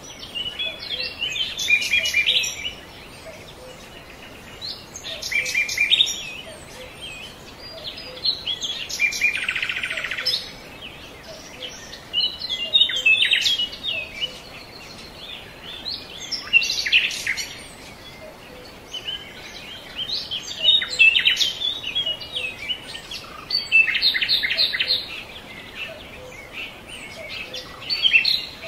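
Birds chirping in short bursts of rapid high calls, one burst every few seconds, as a steady birdsong background.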